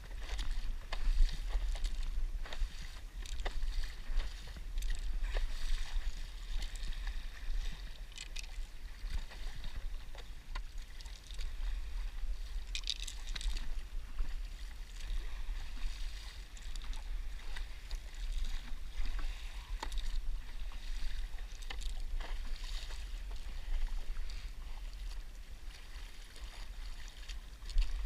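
Stand-up paddleboard paddle dipping and pulling through calm sea water, with light splashes and drips every few seconds, over a steady low wind rumble on the microphone.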